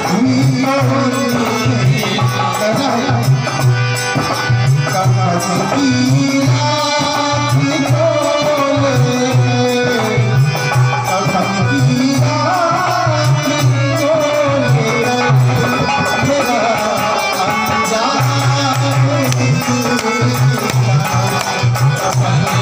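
A Hindu devotional bhajan performed live: a male voice singing over harmonium, with hand percussion keeping a steady beat.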